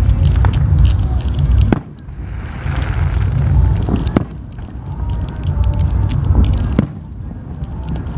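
Aerial fireworks going off: several sharp bangs with crackling over a heavy low rumble.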